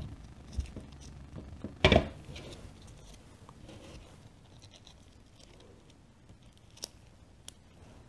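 Handling noises from small parts of an aluminium AVCS cam pulley being assembled by gloved hands: light scratching and clicks as the spring-loaded rotor seals are pushed into their slots, with one louder clack about two seconds in and a couple of faint sharp clicks near the end.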